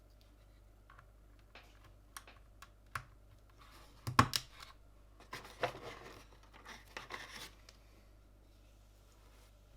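Hand work on mechanical keyboard parts during assembly: scattered small plastic clicks, then one loud snap about four seconds in, followed by rustling and scraping with more clicks, which then die away.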